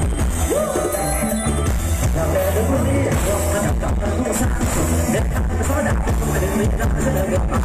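Loud dance music played through a Thai rot hae procession sound-system truck, with a heavy, booming bass line, a steady beat and a wavering melody or vocal line, picked up live on a phone's microphone.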